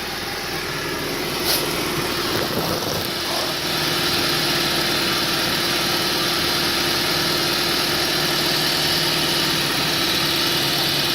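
1994 Honda Civic engine idling steadily after a fresh oil change. A single click about a second and a half in, and about three and a half seconds in the sound steps up a little louder and stays there.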